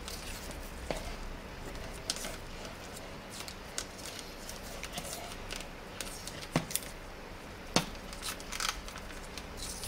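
Paper masking tape being handled and wound around an appliance cord: a faint rustle with scattered sharp clicks and ticks, several close together past the middle.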